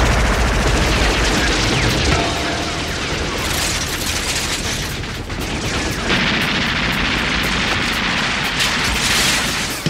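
Automatic rifle fire from an animated film's sound effects: a dense, unbroken volley of shots mixed with bullet impacts on the walls.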